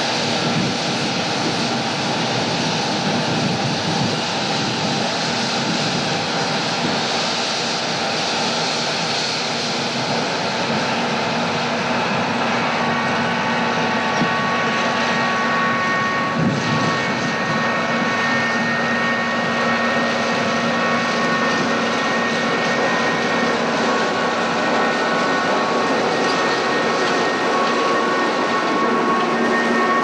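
John Deere 8820 combine's six-cylinder diesel and threshing machinery running steadily in a soybean field, a loud, even mechanical din. A steady whine comes in about halfway through.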